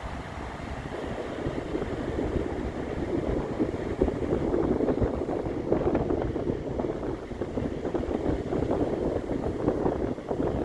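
Ocean surf washing on a beach, with wind buffeting the microphone; the wash grows louder over the first few seconds.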